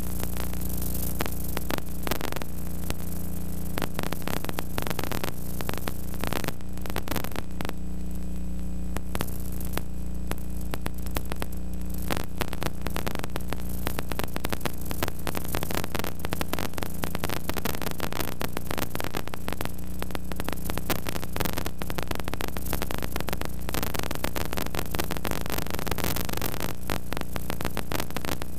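Steady electrical hum under dense crackling static and hiss, with no clear sound from the game itself.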